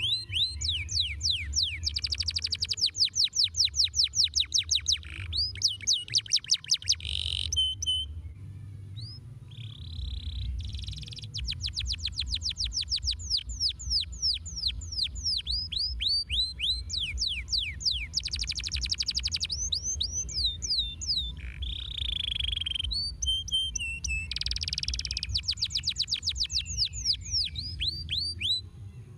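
Domestic canary singing: long phrases of rapid trills, each made of quickly repeated falling notes, broken by short pauses.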